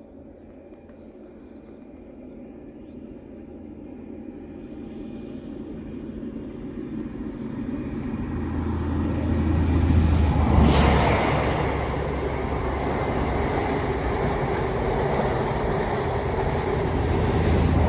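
Model train running on the layout, growing steadily louder over about ten seconds as it comes closer. It is loudest about two-thirds of the way through, with a steady low hum under the rumble of wheels on track.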